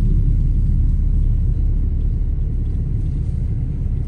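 Steady, loud low rumble of a vehicle on the move, with heavy wind and road noise on the microphone.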